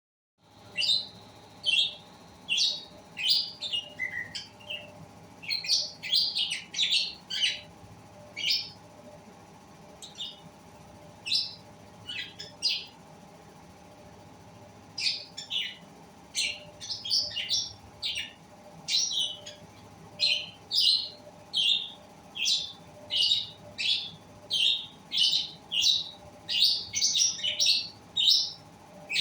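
Pet lovebirds chirping: short, high chirps in quick runs, with a pause of a couple of seconds midway, over a faint steady hum.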